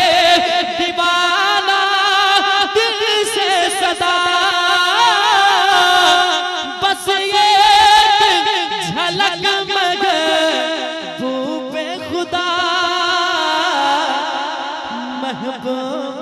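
Urdu devotional naat singing: a long, wavering, wordless vocal line held over sustained musical accompaniment, growing gradually quieter over the last several seconds.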